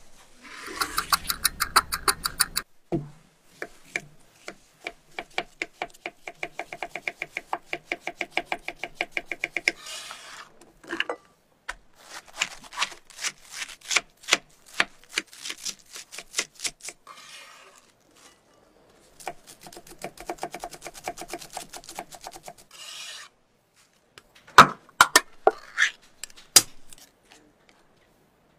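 Knife chopping iceberg lettuce on a wooden cutting board: several runs of fast, even strokes, a few each second. A few separate sharp clicks come near the end.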